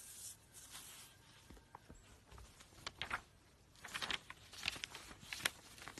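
Pug puppy nibbling at the edge of a paper notebook: faint, irregular crackles and rustles of paper, coming thicker after about three seconds.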